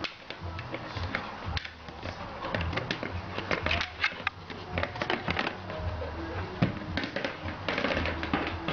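A dog pushing a hard plastic two-in-one treat ball around with its nose and paws, the ball giving a run of irregular clicks, knocks and rattles as it rolls and bumps.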